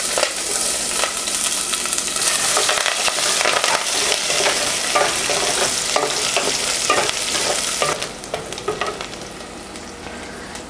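Onion and curry leaves frying in hot oil in a pan, sizzling while a spatula stirs them, with scrapes and clicks. The sizzle dies down about eight seconds in.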